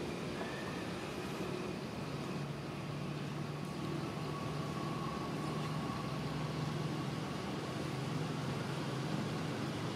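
Steady background hum of motor traffic, with a low engine drone and no clear animal calls.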